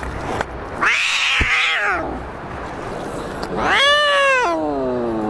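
Domestic cats caterwauling in a fight standoff: a harsh yowl about a second in, then a louder yowl near four seconds that slides down into a long, low, drawn-out moan.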